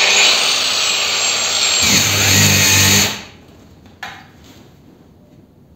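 PROCRAFT PW 1100 ES 125 mm angle grinder running with a high whine. About two seconds in, its pitch dips slightly and a lower hum joins. A second later it stops abruptly, and a single click follows.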